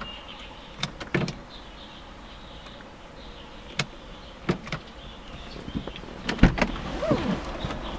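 Scattered clicks and knocks in a car cabin over a faint steady hum, with a deeper thump about six and a half seconds in.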